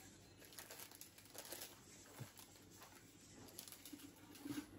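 Near silence, with faint scattered clicks and rustling.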